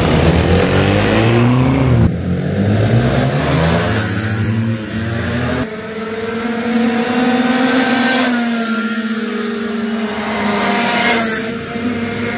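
Several go-kart engines revving as the karts pull away from the start line, with pitch rising and falling as the throttles open. About six seconds in the sound changes abruptly to karts further off lapping the track, engine notes climbing and dropping through the corners.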